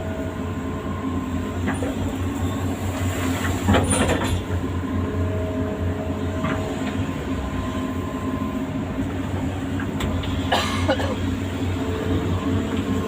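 Amphibious excavator's diesel engine running steadily at work, with two sharp metallic noises from the machine, about four seconds in and again about ten and a half seconds in.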